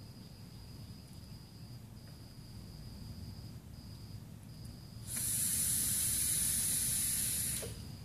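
Plume Veil rebuildable dripping atomizer with dual 22-gauge Kanthal coils at 0.22 ohm, fired during a long draw through a Chuff Enuff drip top: a steady hiss of the coils sizzling and air rushing through, starting about five seconds in, lasting about two and a half seconds and cutting off sharply.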